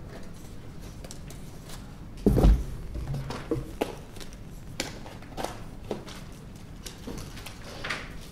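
A heavy thump about two seconds in, followed by scattered light clicks and knocks.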